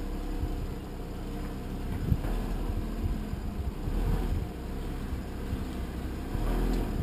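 Porsche Cayman's engine running at low revs as the car creeps slowly out of a parking space.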